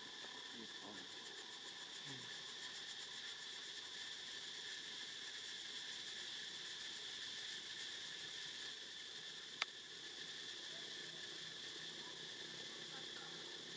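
Steady high insect chorus, a continuous buzzing drone. A few faint, short falling squeaks come in the first two seconds, and a single sharp click about nine and a half seconds in.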